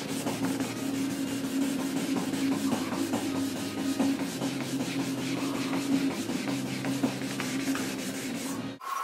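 Hand sanding of a painted tractor panel with 1200-grit sandpaper on a sanding block: color sanding the paint, a steady back-and-forth rubbing rasp. A steady low hum runs underneath, and both cut off abruptly near the end.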